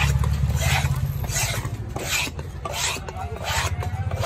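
Large knife blade scraped repeatedly across the end grain of a wooden chopping block, clearing it of fish scraps: about six rasping strokes, roughly one every 0.7 s. A steady low hum runs underneath.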